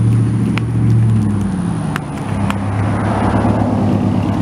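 A steady low engine hum, with a few sharp small firework pops and a hiss swelling about three seconds in.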